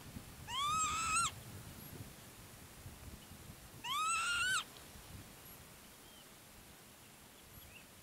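Northern lapwing giving its 'pee-wit' call twice, about three seconds apart. Each call is under a second long, rising sharply in pitch and then levelling off.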